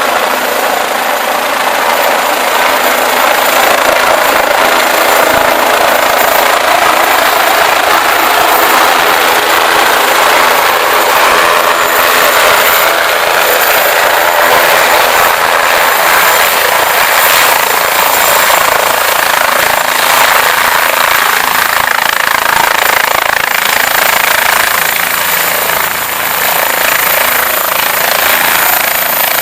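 Medevac helicopter's rotor and turbine running loud and steady at close range, with a thin high whine over the rotor noise.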